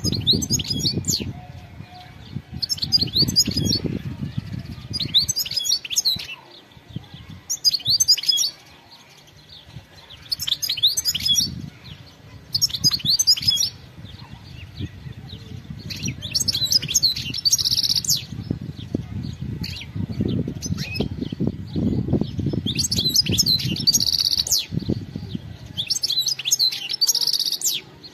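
European goldfinch singing in short bursts of rapid twittering high notes, about ten phrases a couple of seconds apart, some with a held buzzy note. A low uneven rumble runs beneath the song.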